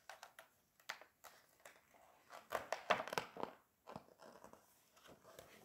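Faint paper rustling and crinkling as a hand turns a page of a hardcover picture book, with scattered light taps and a denser rustle about halfway through.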